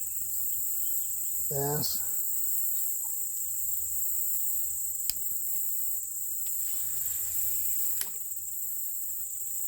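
Crickets trilling steadily in a continuous high-pitched chorus, with two brief sharp clicks about five and eight seconds in.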